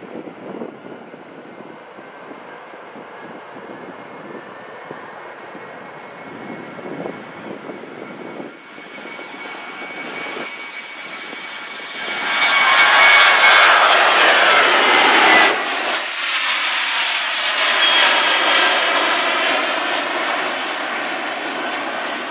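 Southwest Boeing 737-700 taking off on its two CFM56 jet engines. A steady jet noise runs during the takeoff roll, then about twelve seconds in it turns suddenly loud as the jet lifts off past, with falling tones. It peaks again a few seconds later and then slowly fades as the jet climbs away.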